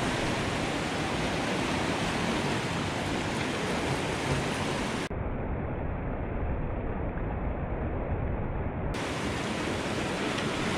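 Steady rushing noise of sea surf washing over a sandstone rock platform.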